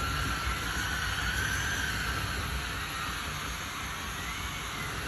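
Large RC bulldozer's electric drive whining under load as it pushes a heavy, sticky pile, with a steady low rumble beneath. The whine wavers slightly in pitch.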